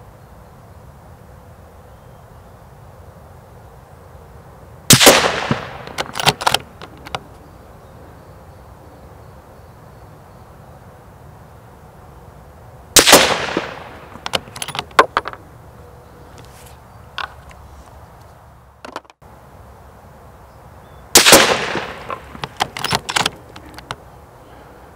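Three rifle shots from a Mauser M18 chassis rifle in 6.5 Creedmoor, about eight seconds apart. Each is a single loud crack with a rolling, fading tail and a few smaller sharp reports over the next second or two.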